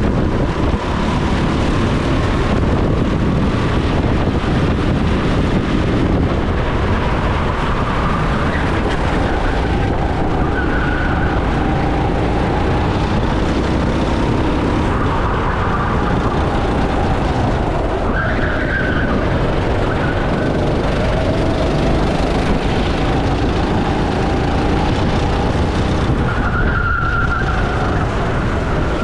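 Racing go-kart engine heard onboard, its pitch rising and falling again and again as the kart accelerates and brakes through the corners, over a dense low rumble of wind and chassis noise.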